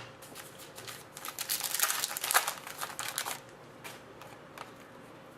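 Trading cards being handled: a sharp click right at the start, then about two seconds of dense crinkly rustling from about a second in.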